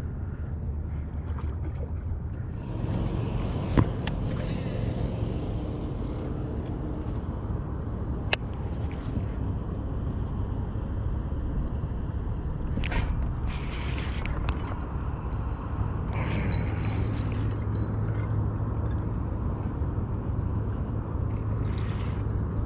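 Steady low rumble and wash of outdoor noise aboard a small fishing boat, with two sharp knocks about four and eight seconds in.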